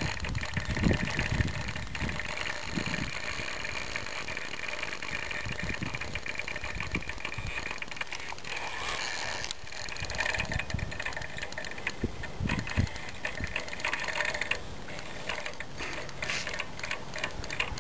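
Spinning reel on a carp rod ratcheting in a dense run of fine clicks as a carp is played on light 2 lb monofilament. Low rumbles sound on the microphone.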